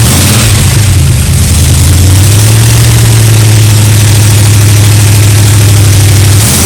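Supercharged V8 with an 8-71 blower, in a 1966 Chevy Nova, running loud after its front blower gasket was replaced, run up to check for leaks. The engine speed wavers for the first couple of seconds, then holds steady at a raised speed until near the end, when it begins to change again.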